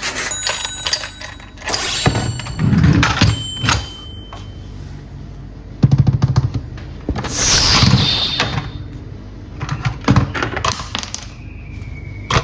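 Toys being handled: irregular clicks, knocks and thuds, with a few short electronic tones and one falling whistle-like sweep about halfway through.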